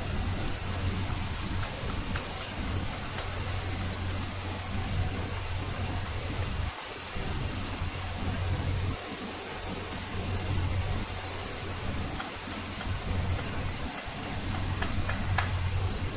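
Sliced onions frying in oil in an aluminium kadai: a steady sizzle, with a low hum that comes and goes. A few light knife taps on a cutting board near the end.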